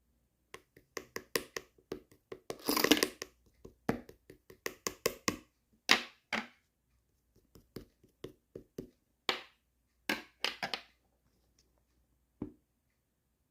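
Two-layer slime being pressed and poked by hand, making a run of sharp clicking pops. The pops come thickest about three seconds in, then in scattered clusters with short pauses.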